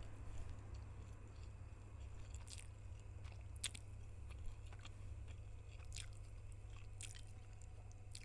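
Close-miked chewing of spicy noodles, with scattered soft clicks and crunches from the mouth over a steady low hum.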